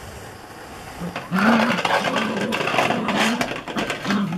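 Border Collie puppy growling in short repeated bursts while it mouths and pushes a plastic plant pot, with the pot scraping on tarmac. The sound starts after a quieter first second.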